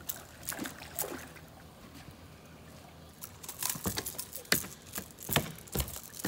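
Scattered knocks and clicks of gear being handled on a small boat's deck. Two light ones come early, then a run of sharper, heavier knocks over the last couple of seconds.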